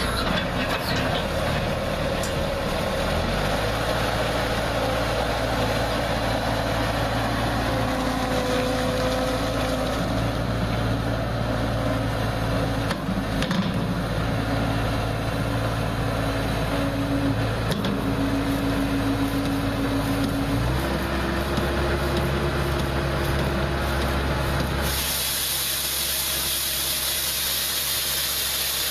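Skid steer loader's engine running steadily while driving a hydraulic sweeper broom, its note shifting a few times. A loud hiss comes in near the end.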